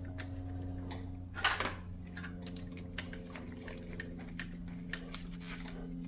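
A few faint clicks and a short scrape as hands work fusible-link wires and terminals into place in a car's fuse box, over a steady low hum.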